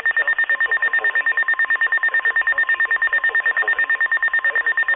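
Weather radio receiver's alert alarm: a rapid pulsing electronic beep, about ten beeps a second, signalling an incoming flood warning. About half a second in, the broadcast's steady NOAA Weather Radio warning alarm tone, near 1050 Hz, joins it.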